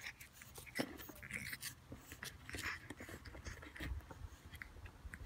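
A pug puppy's faint scuffling and snuffling as it noses at a pug statue on concrete: many short, scattered scratchy ticks.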